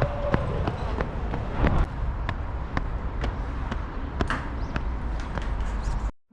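Running footsteps, about three strikes a second, from Asics Novablast 3 running shoes on pavement, over a low rumble of wind on the microphone. The footsteps stop abruptly near the end.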